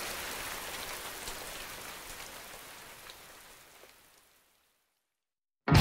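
Steady rain falling, an even hiss with scattered drops, fading out over about four seconds to silence. Music starts abruptly right at the end.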